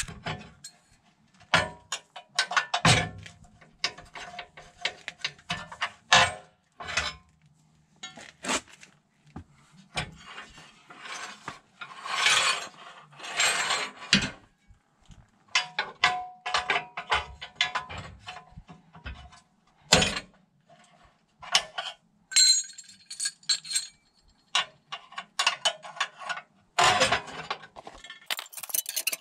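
Steel-on-steel clinks, clicks and scrapes as the blades of a Mörtl disc mower are changed, a steel lever pressing down the quick-change blade holders and the loose blades being handled against the cutting discs. The knocks come irregularly, some ringing briefly.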